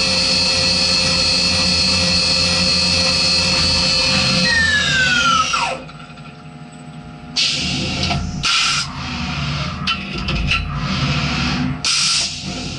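CNC vertical milling machine's spindle running at speed with a steady high whine, then spinning down about five seconds in, its pitch falling away. After a short lull, several short hisses of compressed air from a hand air gun blowing aluminium chips off the vise.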